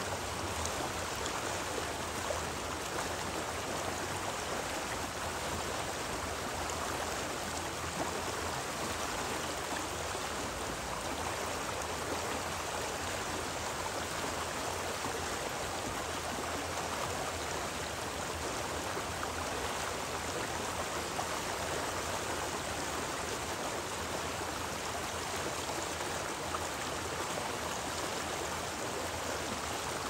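Flowing stream water: a steady, even rush with no breaks or changes.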